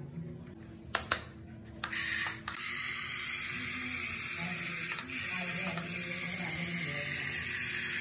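Remote-control toy spider's motor and gears whirring steadily as it walks, starting about two seconds in after two sharp clicks.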